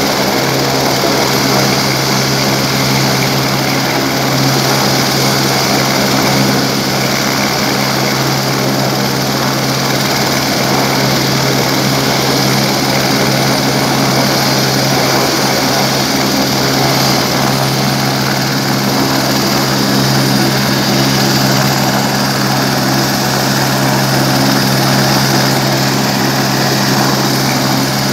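Helicopter running on the ground with its rotor turning: a loud, steady drone with a low hum that does not change.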